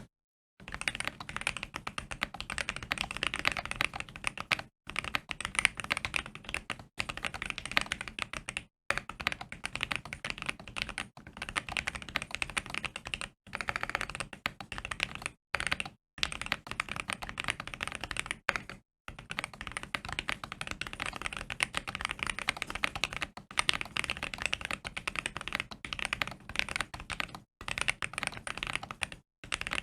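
Fast, continuous typing on a mechanical keyboard with Holy Panda X tactile switches, lubed and filmed. The keystrokes clack in dense runs, broken by about ten short pauses.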